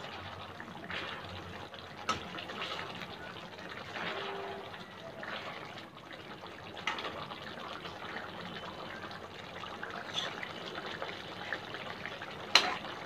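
A steel slotted ladle scooping and pouring thin tomato gravy over baby brinjals in an iron kadai: liquid sloshing and splashing, with a few clinks of the ladle against the pan, the loudest near the end.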